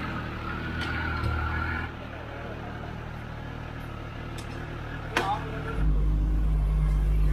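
Large motorcycle engines idling and moving off at low speed. About six seconds in, a sport bike comes close and its steady low idle becomes much louder. There is a short sharp click just before.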